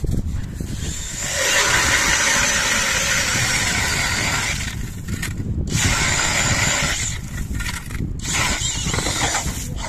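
Zubr cordless drill driving a 130 mm NERO ice auger through ice: the motor and gears whine steadily under load while the auger grinds into the ice. It runs in several stretches, with brief stops about five and eight seconds in.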